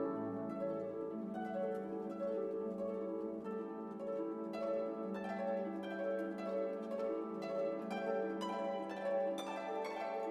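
Background music: plucked harp-like notes in a quick, even run over a sustained low chord.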